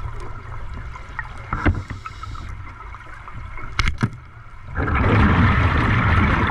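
Underwater recording of a speargun shot at a fish: two sharp clicks about four seconds in, then a loud bubbling rush from about five seconds on.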